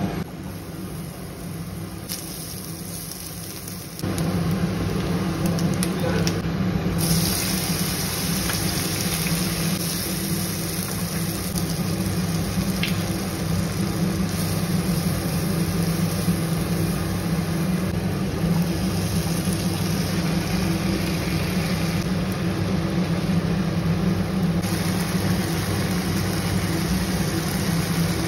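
Induction cooktop humming steadily under food sizzling in hot oil in a frying pan, the sound growing louder about four seconds in.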